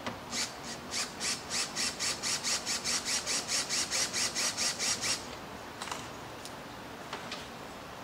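Makita cordless drill turning a fastener slowly, giving a rhythmic rasping click that quickly settles to about four or five a second and stops after about five seconds.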